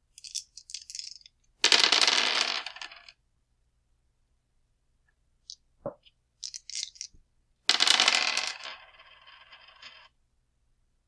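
Dice shaken, with short high rattles, then thrown and clattering and tumbling across a hard surface until they settle. This happens twice: the first throw is about two seconds in, the second about eight seconds in.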